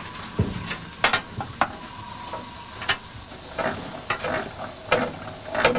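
Irregular metallic clicks and clanks of the tender handbrake being wound off in the cab of LMS Coronation-class steam locomotive 46229 Duchess of Hamilton, over a steady hiss of steam.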